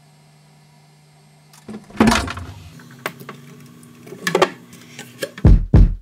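Faint steady hum, then knocks, clicks and clatter of things being handled in a kitchen, with a thud about two seconds in; heavy low thumps start near the end.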